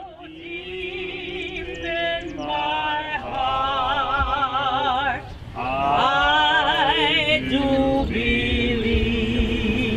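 People singing without instruments, long held notes with a wide vibrato in phrases that rise and fall, with a short break about five seconds in.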